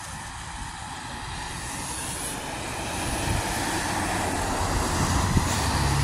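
Short yellow Blue Bird school bus approaching and driving past, its engine and road noise growing steadily louder, with a low engine drone coming in near the end.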